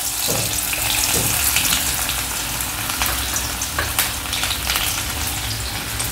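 Chopped onion frying in hot oil with cumin seeds in a steel kadhai: a steady sizzling hiss with scattered small crackles, the onion newly added to the cumin tempering.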